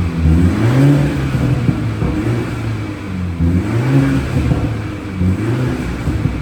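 BMW 430i F36's turbocharged four-cylinder revved repeatedly through its exhaust, the pitch climbing and falling about five times. The exhaust flap is held permanently open, so it is much louder than stock, even in comfort mode.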